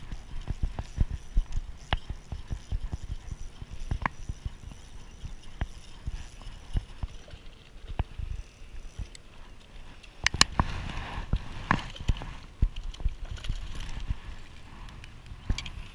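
Irregular knocks and clicks from handling a spinning rod and reel while landing a fish in a plastic kayak, with a busier stretch of knocking and rustling about ten seconds in.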